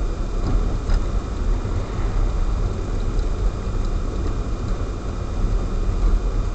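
A car driving on a snow-covered road, heard from inside the cabin: a steady low rumble of engine and tyre noise.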